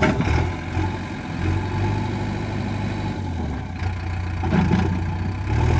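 JCB 3DX backhoe loader's diesel engine running with a steady low drone.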